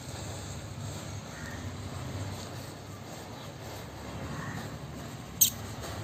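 Wind rumbling on the microphone, with a few faint chirps and one sharp click about five and a half seconds in.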